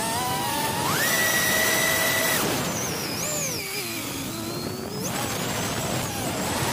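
Brushless motors and propellers of a 3-inch FPV quadcopter, heard through its onboard camera: a high whine over propeller and wind hiss, its pitch jumping up about a second in, holding, sinking and then climbing sharply again about five seconds in as the throttle changes.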